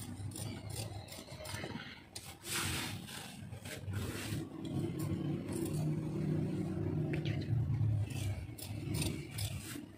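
Rustling and scraping of stiff nylon net fabric being handled and smoothed out on the floor, with a few short rustles, over a steady low hum that grows fuller in the middle.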